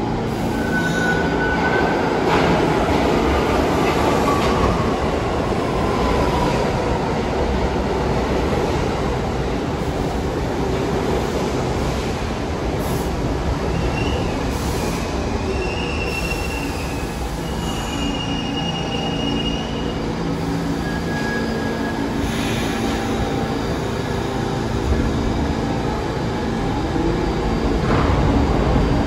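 New York City subway train running through the station with a steady running noise, its wheels squealing on the rails. One squeal slides down in pitch over the first few seconds, then several higher squeals come and go in the middle.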